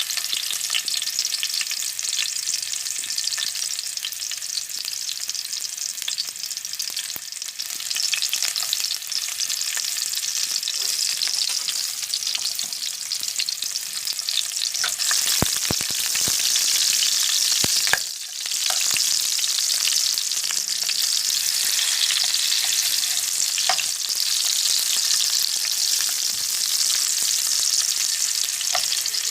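Food sautéing in hot oil in a pan, a steady loud sizzle, with a few sharp clicks about halfway through.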